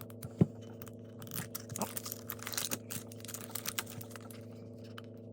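Hands working at a metal Pokeball tin to get it open: scattered small clicks and crackles, with one sharper click about half a second in.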